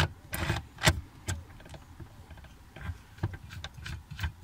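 Irregular clicks and taps of small plastic and metal parts being handled as a new gear is fitted into a BMW E65 electronic parking brake actuator, with a brief scrape about half a second in.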